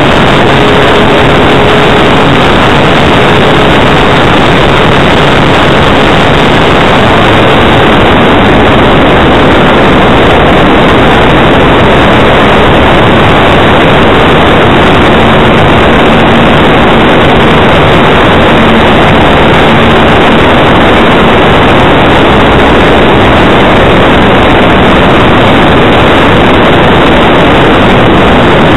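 Loud, steady rush of airflow over a wing-mounted camera's microphone on a flying radio-controlled model plane, with a faint hum from the plane's motor underneath that sits lower in pitch through the middle.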